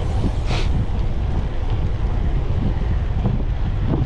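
Wind buffeting the microphone of a camera on a moving bicycle: a steady low rumble, with a brief hiss about half a second in.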